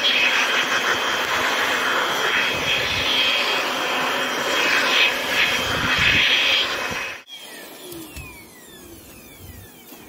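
A small motor running steadily and loudly with a whirring hiss, cut off abruptly about seven seconds in; after that only faint outdoor sound.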